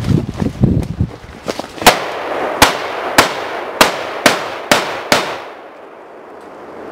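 Running footsteps on leaf litter, then a Barrett REC7 semi-automatic rifle fired seven times in quick succession over about three seconds, starting about two seconds in. Each shot has a short echo.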